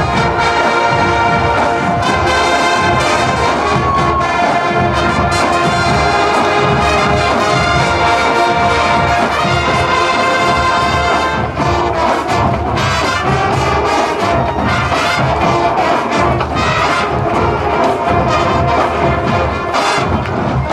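A massed marching band of about 700 players playing, led by trumpets and trombones in sustained chords over percussion hits. The music dips briefly about halfway through and then carries on.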